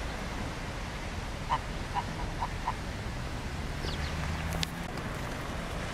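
Waterfowl calling: four short calls in quick succession about a second and a half in, over a low steady rumble.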